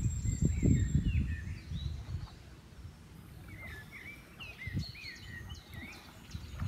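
Water sloshing and splashing as a man swims through a muddy pond, dying away after about two seconds. Small birds chirp throughout in short, rising-and-falling calls.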